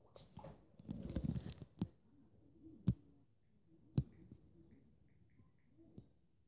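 A brief rustle, then three sharp knocks about a second apart, with a few faint ticks after them.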